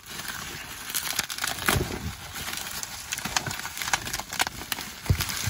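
Plastic bubble wrap crinkling and rustling as hands unwrap a packed item, in irregular crackles with a couple of dull knocks against the cardboard box.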